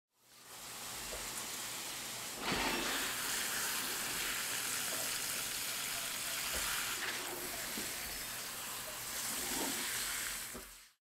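Garden hose spray wand spraying water onto flower-bed plants: a steady hiss that gets louder about two and a half seconds in.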